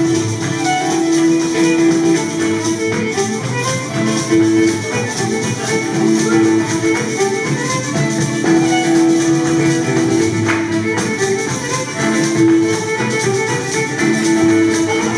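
Acoustic guitar and fiddle playing an Irish traditional tune together, with frame-drum percussion underneath.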